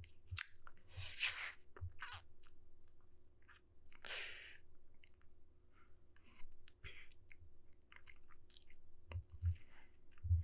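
Close-miked mouth sounds of a vampire biting and drinking blood in ASMR roleplay: irregular wet clicks and smacks, with longer sucking sounds about a second and four seconds in.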